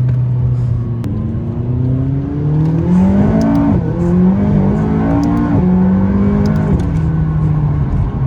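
McLaren 570S twin-turbo V8 pulling hard, its revs climbing and then dropping suddenly several times as it shifts through the gears.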